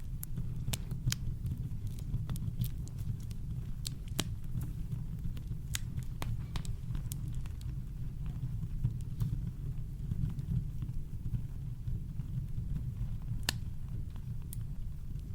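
Campfire crackling: irregular sharp pops and snaps, several a second, over a steady deep rumble of brown noise.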